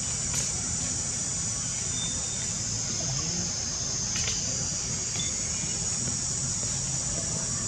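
Steady high-pitched drone of forest insects, with a low rumble underneath and two faint clicks, one about half a second in and one about four seconds in.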